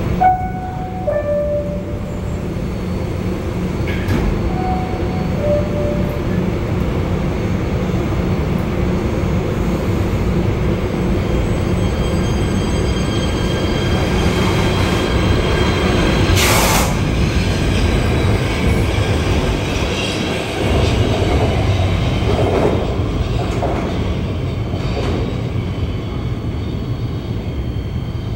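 Kawasaki PA-5 PATH subway train at an underground platform: a descending two-tone door chime sounds just after the start and again about five seconds in, then the train pulls out with continuous rumbling running noise. There is a brief sharp noise about two-thirds of the way through.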